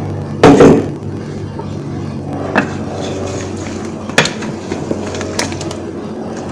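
Cookware clattering against a cooking pot: one loud clatter about half a second in, then a few lighter knocks, over a steady low hum.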